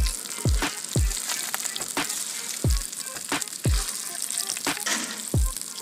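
Crab frying in oil on a flat iron tawa: a steady sizzle with sharp clicks from spattering oil and a metal spatula. About seven loud, deep thumps that drop in pitch come at uneven intervals over it.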